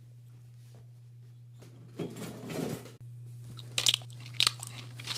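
Crunching and biting into food, with sharp crisp crackles that start about halfway through and come several times a second, over a low steady hum.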